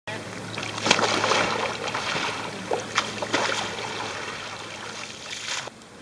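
Water splashing and trickling around a kayak and its paddler, with sharper splashes about one second and three seconds in. It dies down just before the end.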